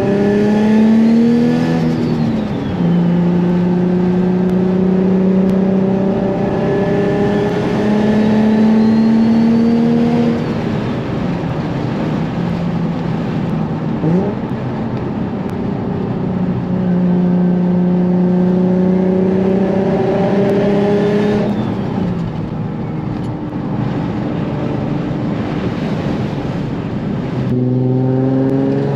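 Single-turbo Nissan 350Z's 3.5-litre V6 heard from inside the cabin, pulling hard several times. The engine pitch climbs through each pull and drops away at each shift or lift, with easier running between. A faint high whine rises and falls along with each pull.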